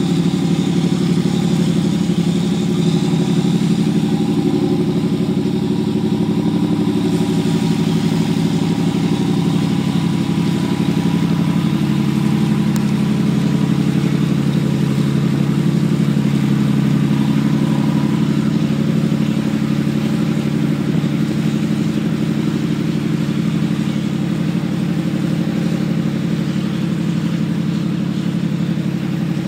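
Cruise boat's engines running steadily with a low hum while its propellers churn the water, moving the boat off the dock.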